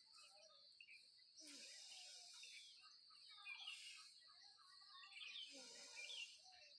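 Near silence: faint outdoor background with a few distant bird chirps.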